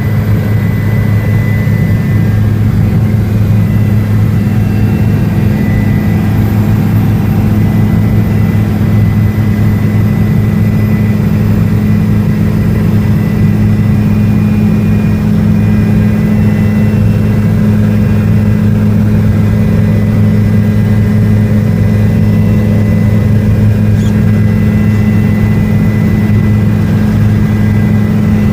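Helicopter in flight: a loud, steady low drone from its engine and rotors, holding the same pitch throughout.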